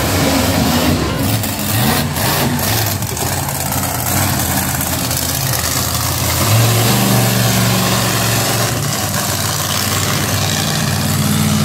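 Monster truck engine running hard and revving across a dirt arena, its pitch rising and falling with the throttle and stepping up about six and a half seconds in.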